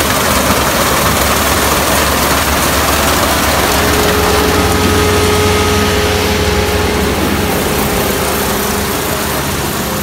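Kubota Dynamax Revo ER470 combine harvester running at close range as it cuts and threshes rice: a steady low engine hum under a loud, even rush of machinery noise.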